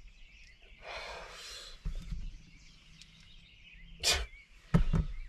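A person stirring in bed: a breathy exhale about a second in, rustling bedding, and two short sharp sounds near the end, over faint birdsong from outside.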